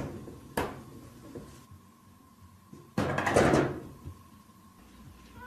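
A sharp knock about half a second in, then a louder, longer bang about three seconds in, with a faint steady high tone underneath.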